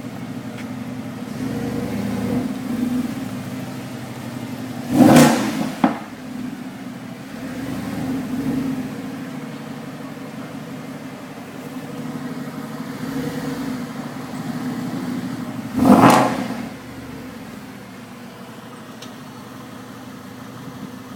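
Mercedes SLS AMG's naturally aspirated 6.2-litre V8 idling, blipped twice with short sharp revs about 5 seconds in and again about 11 seconds later, with smaller throttle swells in between.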